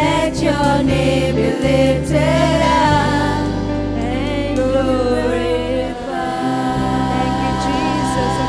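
Christian worship music: voices singing a wavering melody over steady held keyboard chords and bass, the chord changing about six seconds in.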